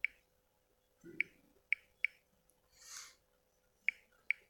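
Key-press clicks from a smartphone's on-screen keyboard as a username is typed: six short, sharp clicks at uneven gaps, in two quick groups. A soft, brief rustle comes about three seconds in.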